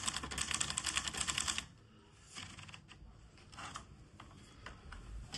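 Hermes Baby manual portable typewriter being typed on: a rapid run of keystrokes, then the typing stops about a second and a half in, leaving a few scattered softer clicks and knocks.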